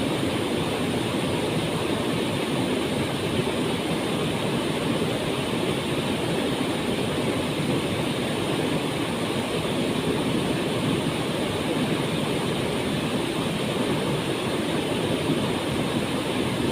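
Waterfall pouring and splashing in a steady, unbroken rush.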